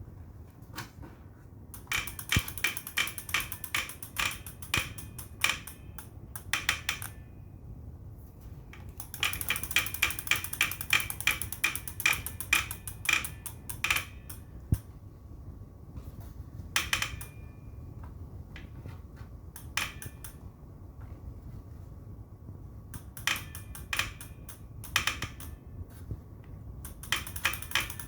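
JetBlack Victory direct-drive smart trainer making bursts of rapid clicking and ticking, several clicks a second, stopping and starting every few seconds over a faint steady hum. The noise is a fault that came on mid-ride, which the owner takes for a problem common to a spring production batch of these trainers.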